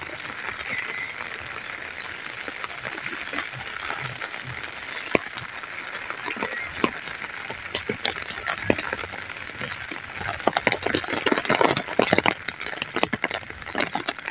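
Steady rain falling on wet fields, an even hiss, with sharp patters and clicks of drops that grow much denser in the last few seconds. A few short high chirps come through every couple of seconds.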